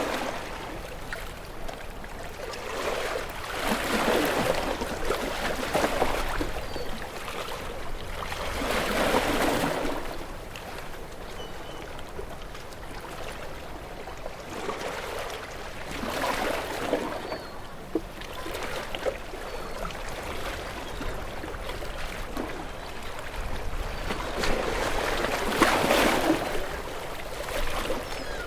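Ocean waves breaking against rocks: four surges of rushing, splashing water at uneven intervals, the last and loudest near the end, with a quieter wash and trickle in between.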